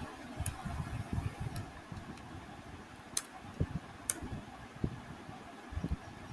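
Typing on a computer keyboard: irregular soft key taps with a few sharper clicks scattered through.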